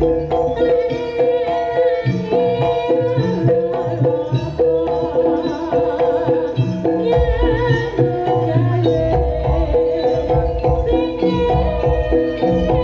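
Loud Javanese jaranan music: drumming in a driving rhythm under sustained pitched melody tones.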